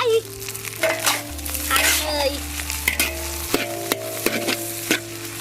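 Red sausages frying in hot oil in a pan: a steady sizzle, with scattered clicks and scrapes of a utensil stirring them, over steady held tones.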